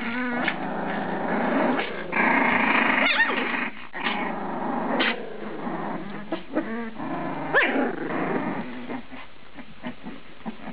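A litter of Boxer puppies play-fighting, growling over each other with short yips and squeals breaking through every second or two.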